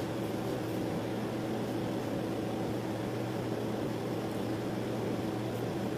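Steady background hum and hiss, even throughout, with a faint low constant tone and no distinct events.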